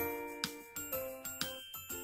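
Background music: light, tinkling children's tune on bell-like mallet notes at a steady pulse.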